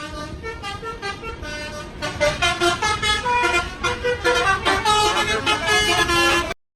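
Bus telolet horns, multi-tone air horns playing quick tunes of short changing notes. The tune grows much louder about two seconds in and cuts off suddenly near the end.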